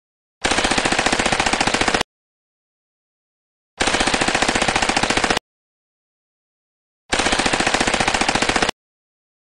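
Uzi submachine gun firing on full auto: three bursts of rapid shots, about ten a second, each lasting about a second and a half, with silence between them.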